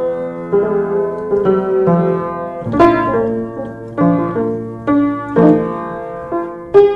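Piano music: unhurried chords and single notes struck every half second to a second, each left to ring and fade.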